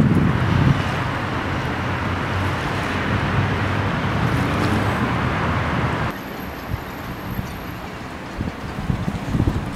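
Steady outdoor background noise of wind and distant road traffic, a low rumble under a hiss, dropping abruptly to a quieter hiss about six seconds in.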